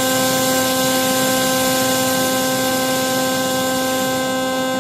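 Analog modular synthesizer oscillator holding one steady note through a VCA whose control input is fed white noise, so the tone comes out rough and hissy, with noise riding on top of it.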